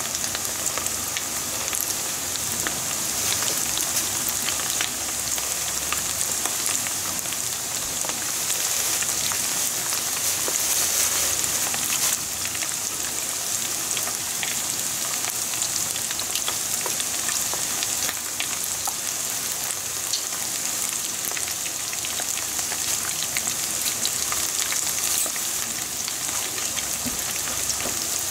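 Battered pieces of karaage deep-frying in a pan of hot oil: a steady sizzling hiss dotted with fine crackles and pops.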